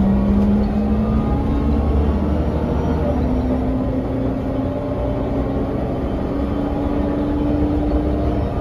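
Inside a 2001 Mercedes-Benz O405NH bus under way: steady low engine and road rumble, with a whine from the ZF automatic gearbox and hub-reduction axle that rises slowly in pitch as the bus gathers speed.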